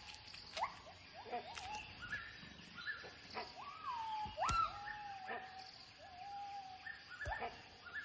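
Gibbons calling in a territorial display: a series of whooping notes, each swooping up in pitch and then levelling off, about one every half-second to second. Around the middle one note is held long and steady. A few sharp clicks come between the calls.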